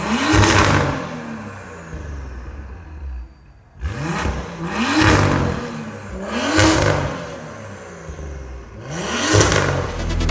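BMW M2's turbocharged straight-six revved four times through an Akrapovic Evolution Line titanium exhaust with sport cat, each blip rising quickly and falling back to idle.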